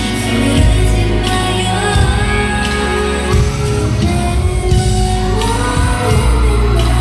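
Female vocalist singing a slow pop ballad live over backing music in a large concert hall.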